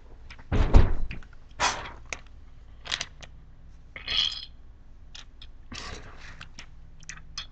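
Handling noise with a loud bump about half a second in, then a few short hissy bursts, one about four seconds in from a mouth at a bottle, as when spitting into a dip spit bottle.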